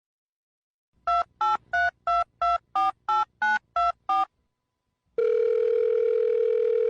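Telephone keypad tones being dialled: ten quick two-note beeps, about three a second. A steady dial-type tone comes on about five seconds in.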